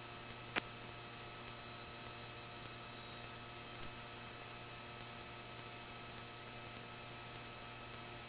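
Faint steady electrical hum from the aircraft's headset and intercom audio feed, with a faint high tick repeating about once every second.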